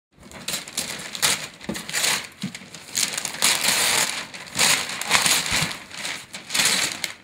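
Wrapping paper being torn and crumpled as a present is unwrapped, in irregular rustling bursts.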